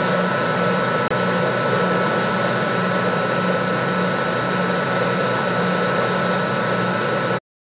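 Induction motor driven by a PWM inverter, running steadily: an even mechanical hum with a steady high whine over it. It cuts off abruptly near the end.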